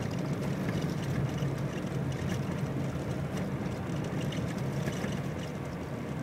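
A vehicle driving along a rough dirt road, heard from inside: a steady low rumble of engine and tyres, with faint scattered ticks and knocks.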